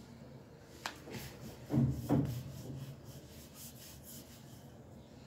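Onion stuffing being spread over a rolled-out roti: soft rubbing and scraping, with a click about a second in and two light knocks around two seconds.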